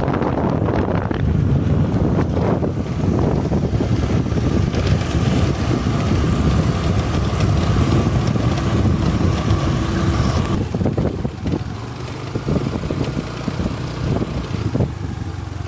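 Noise of a moving road vehicle with wind buffeting the microphone: a heavy, uneven rumble, with a faint steady whine that cuts off about ten seconds in.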